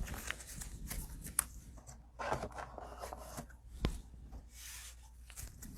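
Trading cards being handled and stacked away by hand: rubbing and rustling with scattered light clicks and taps.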